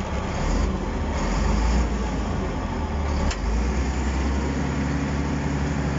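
Bulldozer's diesel engine running steadily under load as its rear ripper tears through soil, heard from inside the cab. There is one sharp click a little over three seconds in.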